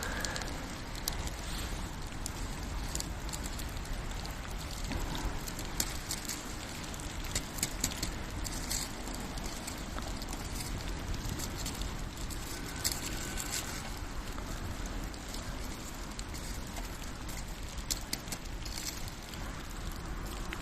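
Campfire crackling in the rain: a steady hiss of falling rain with scattered sharp crackles and pops from the burning wood.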